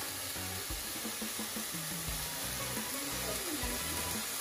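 Vegetables and sauces sizzling in oil in a frying pan, a steady hiss, under upbeat reggae background music with a repeating bass line.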